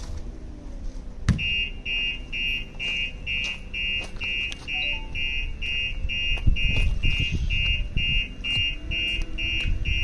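Car alarm going off in a fast, high-pitched beeping, about three beeps a second, which starts right after a sharp knock about a second in. The alarm has been set off by its shock sensor.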